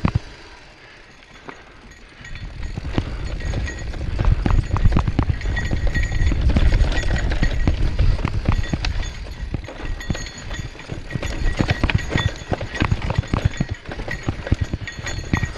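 Mountain bike riding over a rough forest trail: a dense rattle of knocks and clicks from the bike over a low rumble of wind on the microphone, louder from about two seconds in as it picks up speed.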